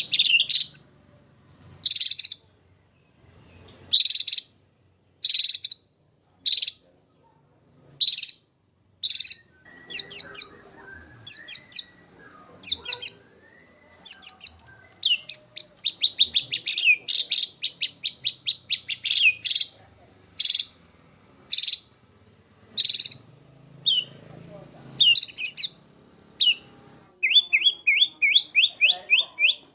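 White-rumped shama singing: short, sharp, high phrases repeated about once a second, speeding into a fast run of repeated notes near the end.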